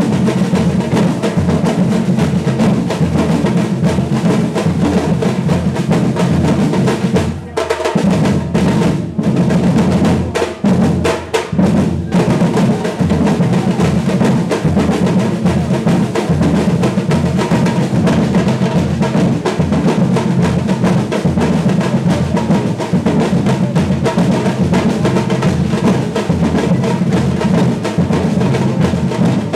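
Brazilian batucada percussion ensemble playing together: deep bass drums under snare-drum rolls and sharp wooden-sounding hits. About seven seconds in, the band plays a break of separate unison strokes with short silences between them. After about five seconds the full groove resumes.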